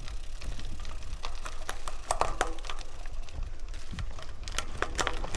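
Low wind rumble on the microphone with irregular sharp clicks and ticks scattered through it.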